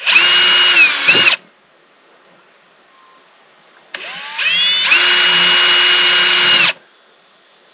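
Cordless drill boring small pilot holes for mounting screws in a caravan's outer wall: two bursts of whining motor. The first runs about a second and dips in pitch just before it stops. The second starts slow about four seconds in, speeds up to full whine, runs about two seconds and stops abruptly.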